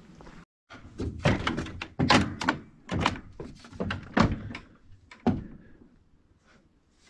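Footsteps thudding on a wooden loft floor, about two a second, dying away after about five seconds.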